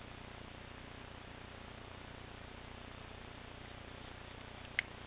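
Steady low hiss of room tone, broken by one sharp click near the end as a page of a coil-bound paper flip book is turned.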